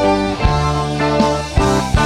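Instrumental intro music with sustained chords and a steady drum beat.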